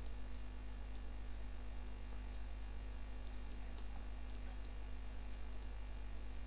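Steady electrical mains hum on the recording, with a few faint clicks.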